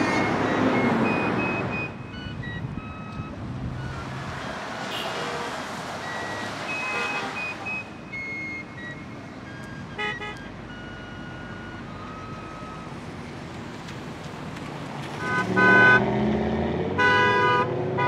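Car horns from passing traffic honking again and again, short toots and longer blasts at several different pitches, over the rush of cars going by; drivers honking in answer to roadside "HONK" signs. The loudest honks come near the end.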